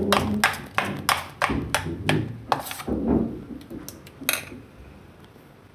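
Metal spoon beating thick semolina dosa batter in a stainless steel bowl: quick, repeated clinks of metal against the bowl's side, with duller sounds from the batter. The clinks stop about four seconds in.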